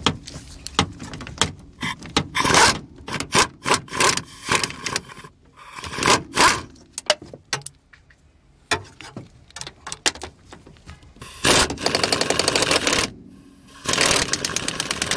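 Socket wrench with a 14 mm deep socket undoing the strut top-mount nuts: scattered metal clicks and clacks, then fast, even runs of ratchet clicking as the nuts spin off, twice in the last few seconds.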